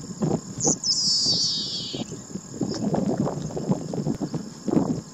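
Yellowish pipit song: a short high note, then one buzzy note sliding down in pitch for about a second. Under it runs a steady high insect trill and an uneven low rumble.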